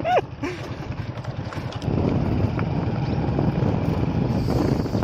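Wind buffeting the microphone over the low rumble of a moving vehicle on a dirt track. It grows louder about two seconds in and then holds steady.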